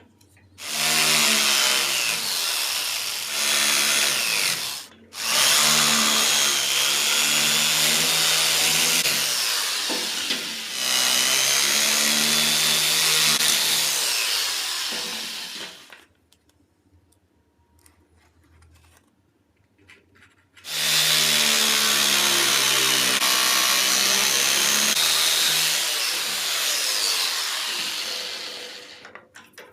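Electric drill, rigged as a home-made milling machine, running with a whining motor pitch that wavers under load. It starts about half a second in, stops briefly around five seconds, runs on for about ten more seconds, pauses for about four seconds, then runs again until just before the end.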